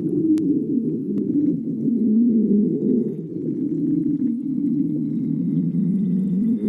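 Human stomach growling from hunger: one long, continuous low rumble that wavers up and down in pitch.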